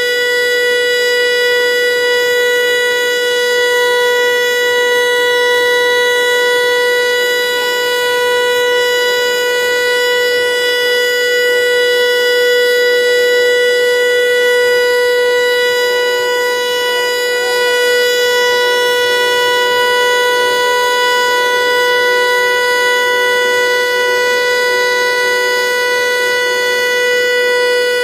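Federal Signal Eclipse 8 outdoor warning siren sounding a loud, steady tone, held at one pitch with no rise or fall.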